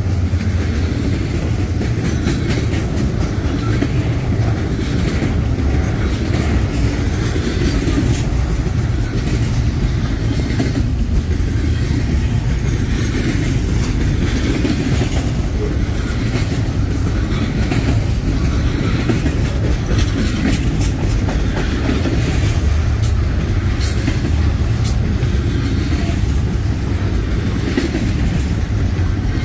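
A train rolling past with a steady heavy rumble of wheels on rail, and sharper clicks in the later part as the wheels cross rail joints.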